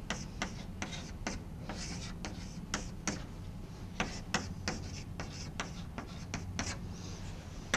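Chalk writing on a blackboard: a quick, irregular run of short chalk taps and scrapes as words are written, over a low steady room hum.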